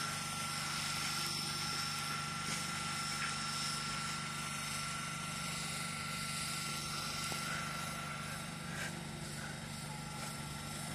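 Steady low electrical hum with a thin high whine held over it, from an electric multiple-unit train standing at the platform.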